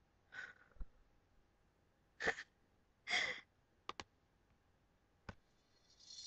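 A person's short breathy exhales and a sigh: a soft one about half a second in, a sharp one just after two seconds, and a longer sigh about three seconds in, with a few small clicks in between. Music starts just before the end.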